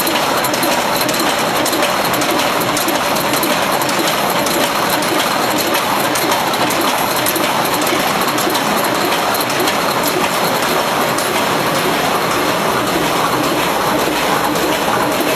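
Corrugated-board flexo printer slotter die-cutter folder-gluer running: a loud, steady mechanical clatter of rollers and feed gear, with many small clicks.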